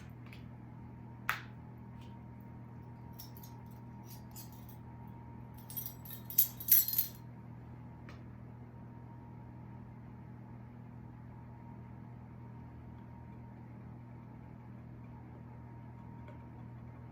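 Measuring spoon and spice jar being handled while a teaspoon of dried thyme is measured out: a sharp click about a second in, then a short burst of light clinks and rattles about six to seven seconds in, over a steady low electrical hum.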